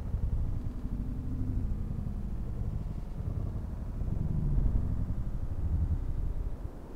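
Wind buffeting a body-worn camera's microphone: a low, fluttering rumble, louder from about four seconds in.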